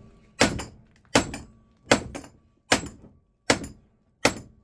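Hammer blows on a small transformer's laminated steel core, struck to crack it apart for the copper windings: six sharp metallic strikes, each ringing briefly, about one every three-quarters of a second.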